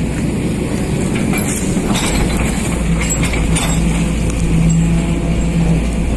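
Hyundai 380LC-7 long-boom excavator's diesel engine running steadily while its joystick-driven hydraulics work, with a few light clicks and rattles. The engine hum grows stronger for about a second near the end.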